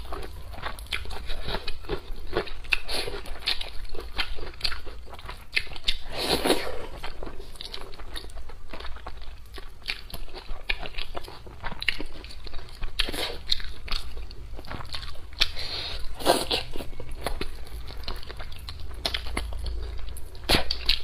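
Close-miked eating sounds: a person chewing and biting into braised fish, with frequent short crunches, clicks and smacks from the mouth. A steady low hum runs underneath.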